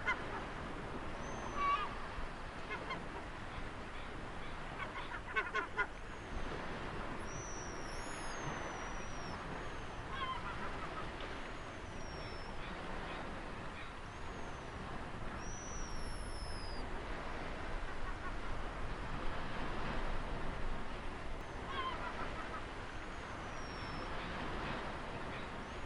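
Steady wash of ocean waves with birds calling over it: short honking calls every few seconds and high, falling whistled notes.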